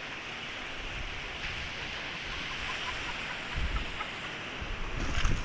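Sea waves washing on a sandy beach, a steady surf hiss, with wind buffeting the microphone in low rumbles about three and a half seconds in and again near the end.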